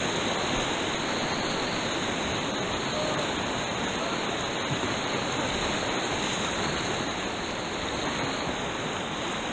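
Steady rush of white water running through river rapids.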